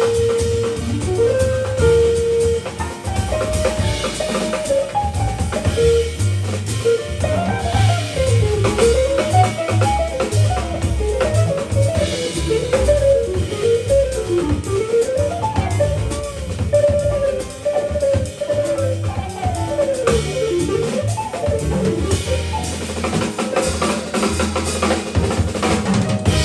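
Live jazz with a semi-hollow-body electric guitar soloing in fast, running single-note lines over walking upright bass and a drum kit.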